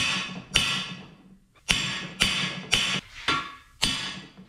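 Hammer blows driving cam bearings into an LS V8 engine block, each strike ringing as it fades. There are seven strikes about half a second apart, with a pause of about a second after the first two.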